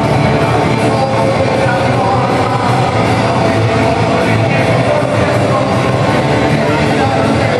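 Loud rock music with singing from a band playing live, unbroken throughout.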